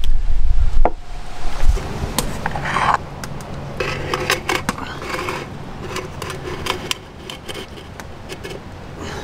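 Thin metal scraping, rubbing and clicking as a small aluminium baking tray is slid into a tin-can oven and the can's cut lid is handled. A low wind rumble on the microphone during the first second.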